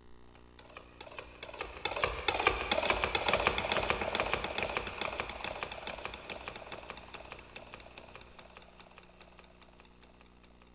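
A sound effect from the TJ Media WOW-7800 karaoke machine: a dense stream of rapid clicks and patter that swells in over about two seconds and then slowly fades away.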